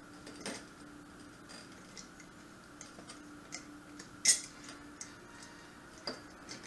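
Metal screw-on lid being twisted onto a glass mason jar, giving small scattered clicks and scrapes with one sharper click about four seconds in, over a faint steady hum.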